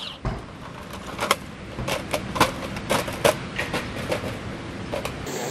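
Irregular sharp clicks and cracks of dry twigs and pine needles being crushed on a forest floor, about a dozen over five seconds, over a low rumble.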